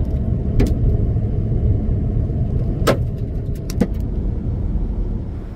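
A car's steady low road rumble while driving, with a few sharp clicks or knocks on the body: one early on, one near the middle and a quick run of four just after.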